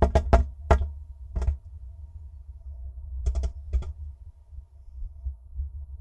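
Sharp taps on the wood of a nest box from a tit at its entrance hole: a quick cluster of taps at the start, one more about a second and a half in, and three more a little after three seconds. Under them runs a steady low rumble.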